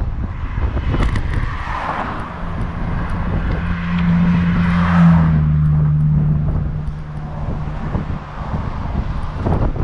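Wind buffeting the microphone over road traffic; a motor vehicle passes about five seconds in, its hum swelling and dropping slightly in pitch as it goes by.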